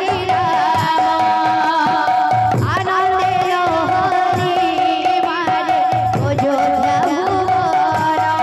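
Devotional kirtan music with singing: a held steady melody note under wavering sung lines, over hand-drum beats.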